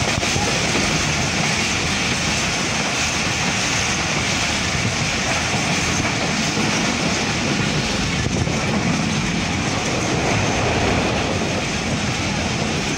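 Steady running noise of a Pakistan Railways passenger train's coach wheels on the track, heard from on board, with a faint knock about halfway through.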